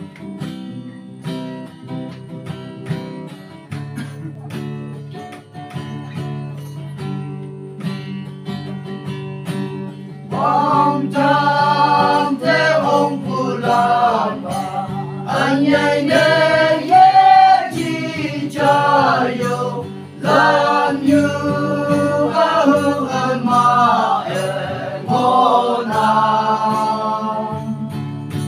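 Two guitars strumming a short introduction, then a group of men start singing a hymn together over them about ten seconds in.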